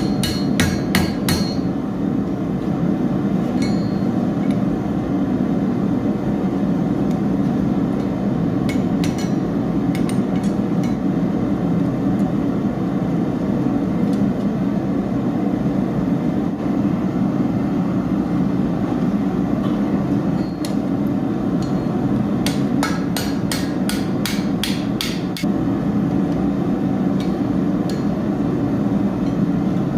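Blacksmith's hammer striking metal on an anvil: clusters of sharp ringing blows about a second in, a few near ten seconds, and a quick run of strikes from about 21 to 25 seconds, over a steady low roar.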